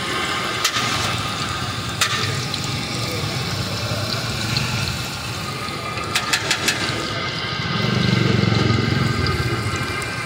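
Pakora batter deep-frying in a large wok of hot oil, a steady sizzle throughout, with a few sharp clicks around the middle. A low rumble swells briefly near the end.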